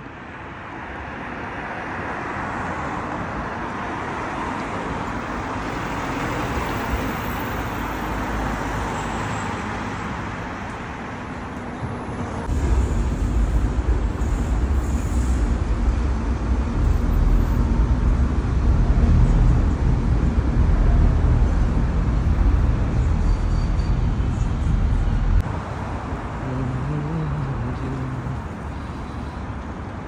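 Street traffic noise from passing road vehicles. About halfway through, a heavy deep rumble comes in suddenly and cuts off just as suddenly a few seconds before the end.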